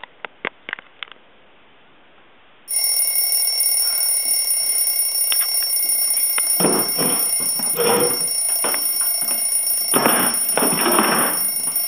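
Telephone ringing: a steady, shrill electronic ring that starts suddenly about three seconds in and holds without a break, with a few louder bursts of rustling over it in the second half.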